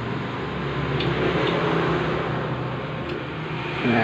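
Steady mechanical hum of a Flypower digital badminton stringing machine just switched on, its tensioner running through start-up before it is ready to use. The hum swells a little in the middle and eases off near the end.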